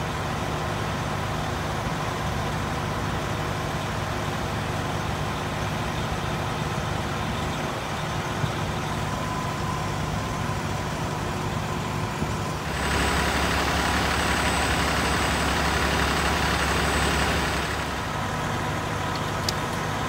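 Fire-truck diesel engines idling with a steady low hum. About two-thirds of the way through, a louder rushing hiss with a deeper drone comes in, holds for about five seconds, then drops away.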